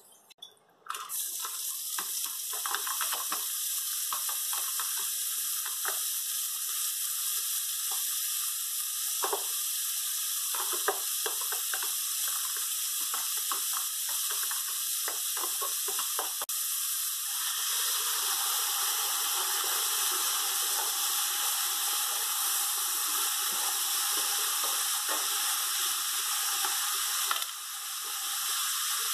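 Hot oil sizzling in a stainless-steel pot as chopped onions and then diced peppers go in and are stirred. It starts suddenly about a second in, with scattered crackles and clicks, and grows fuller about two-thirds of the way through.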